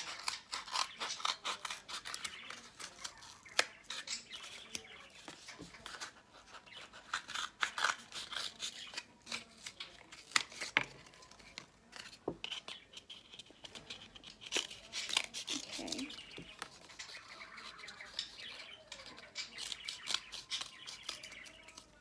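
Scissors snipping through a cardboard paper towel tube: a long series of sharp cutting snips and crunches, with short pauses between cuts.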